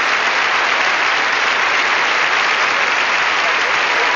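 A large arena crowd applauding steadily in an ovation for a finished figure-skating program.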